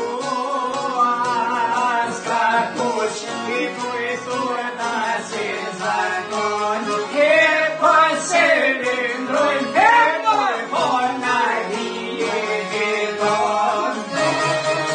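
Albanian folk song played on long-necked lutes (çifteli and sharki) with piano accordion, under a male voice singing a slow, ornamented melody that swells loudest about halfway through.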